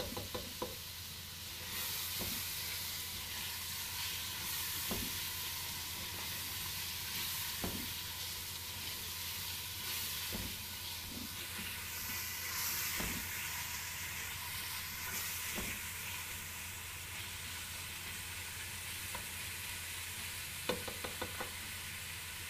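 Diced boneless chicken frying in oil in a pot, with a steady sizzle. A slotted spatula stirring the pieces knocks and scrapes against the pot now and then.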